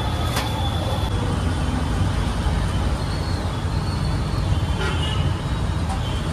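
Steady rumble of road traffic, with two sharp clicks, one about half a second in and another near five seconds.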